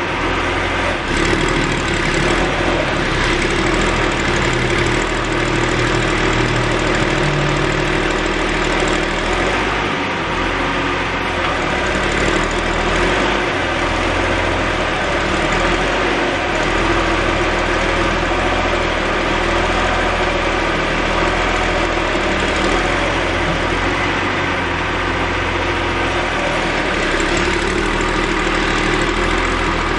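John Deere backhoe's diesel engine running steadily, with small shifts in pitch in the first several seconds.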